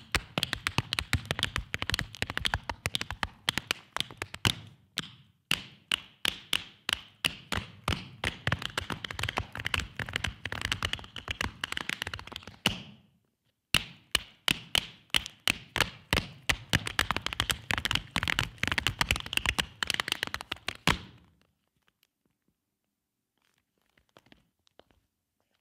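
Two dancers' tap shoes striking a stage floor in fast, dense rhythms of sharp metal taps, with a brief break about five seconds in and about a second's silence halfway through. The tapping stops about four seconds before the end, leaving near silence with a few faint taps.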